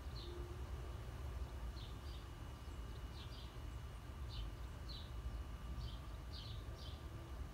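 A bird chirps in short high calls, often in pairs, about once a second, over a steady low rumble.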